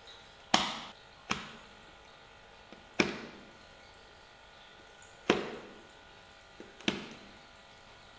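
Utility knife blade cutting down into the notched ends of a stack of thin pine kumiko strips: five sharp clicks at uneven intervals, each dying away over about half a second.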